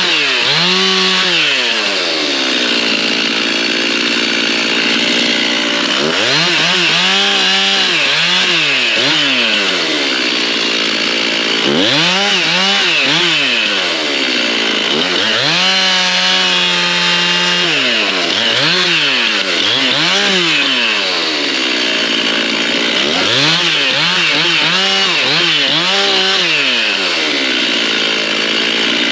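Stihl MS 391 two-stroke chainsaw delimbing hardwood. The engine revs up and drops back again and again between cuts, and holds a steady pitch for a second or two while cutting through limbs.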